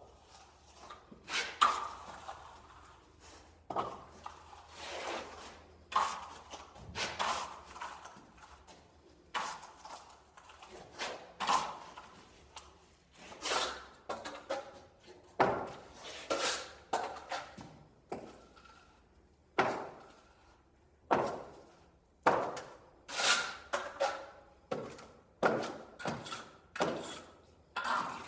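Steel plastering trowel scraping across a freshly laid white-set finish plaster on a wall, in repeated short strokes about one a second, some with a faint metallic ring.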